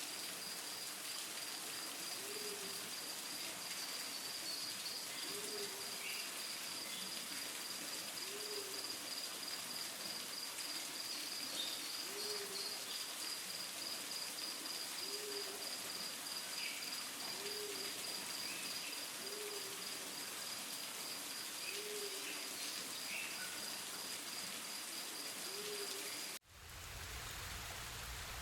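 Low, soft hooting calls repeated every couple of seconds, over a steady fast high chirring like insects and a constant watery hiss. Near the end the sound cuts abruptly to a fuller rushing of water or rain.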